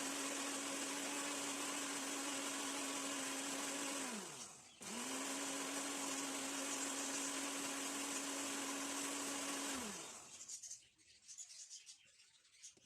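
Moulinex electric mixer beating eggs and sugar: the motor runs at a steady pitch, winds down about four seconds in, starts again almost at once, then winds down and stops near ten seconds, leaving a few faint clicks.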